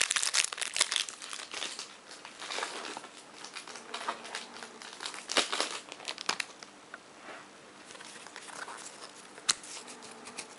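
Foil wrapper of a Pokémon booster pack crinkling and tearing as it is pulled open, the pack heavily glued at its seams. The crackling is densest in the first couple of seconds, then comes in scattered crinkles and a few sharp snaps.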